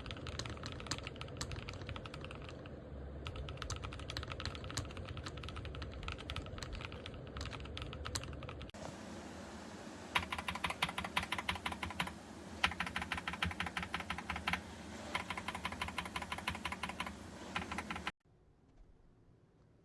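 Typing on a mechanical keyboard fitted with KTT Strawberry linear switches: a quick run of keystrokes. About nine seconds in the sound changes to sharper, brighter clacks in bursts, then it stops abruptly near the end.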